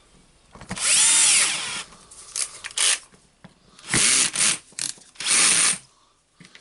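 Cordless screwdriver driving in the screws that close a drill's housing, in several short bursts. In the longest burst, about a second in, the motor's whine rises and then falls.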